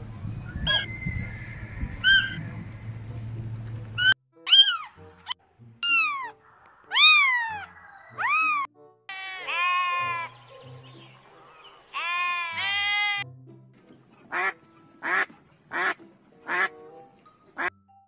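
A run of animal calls. First, deer splashing through shallow water with a couple of short calls. Then a series of bleats, with a goat's wavering bleats around the middle, and near the end a row of short, sharp bird calls.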